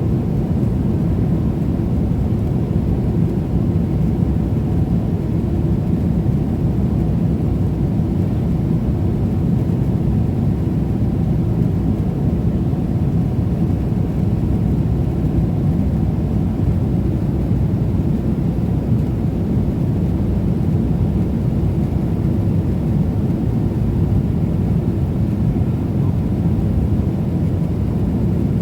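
Steady low rumble of engine and airflow noise inside the cabin of a Boeing 777-300ER airliner with GE90 engines, holding the same pitch and level throughout.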